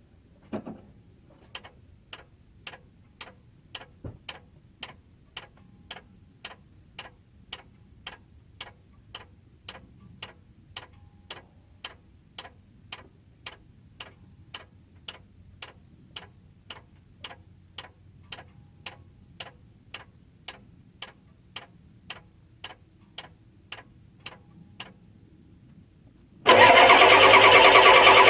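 A steady light ticking, about two and a half ticks a second, then about 26 seconds in the starter suddenly cranks the 7.3 litre IDI diesel over loudly. The engine turns over without catching, a sign of a no-start fault.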